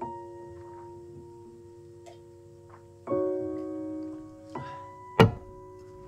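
Soft background piano music playing slow, sustained chords, with a new chord struck about three seconds in. A single sharp knock sounds near the end.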